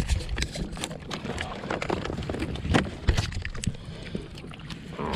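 Scattered knocks and clicks of gear aboard a kayak, over water and wind noise.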